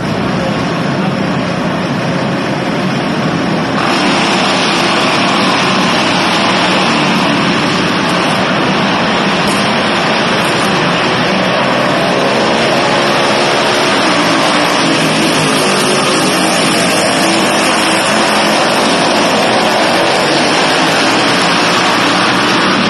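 Several small pull-start minibike engines racing around an indoor dirt track, their pitch rising and falling as riders accelerate and lift, carried through a large arena hall.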